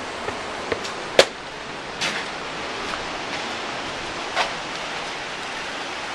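Steady hiss of ocean surf washing below, with a few sharp knocks over it, the loudest about a second in.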